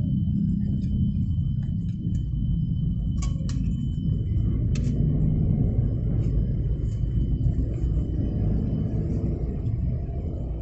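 Steady low rumble of a car's engine and road noise heard inside the cabin in slow traffic, with a few faint ticks about three to five seconds in and a faint steady high whine.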